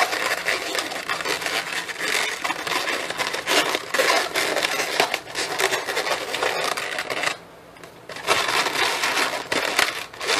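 Inflated latex twisting balloons (260s) squeaking and crackling as they are twisted and rubbed against each other and the hands, with a pause of about a second a little past the middle.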